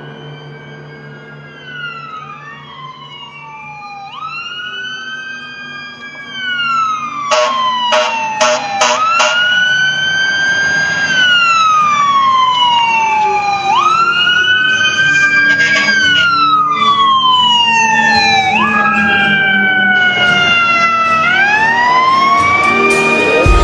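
Fire engine sirens wailing, at least two out of step with each other, rising and falling every few seconds. The sound gets much louder about a third of the way in as the trucks approach. Several short horn blasts come in quick succession soon after, with another near the middle.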